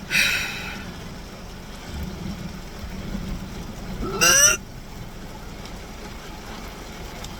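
A sharp, hissing breath, then about four seconds in a short wordless vocal groan that rises and falls in pitch, over the low hum inside a car.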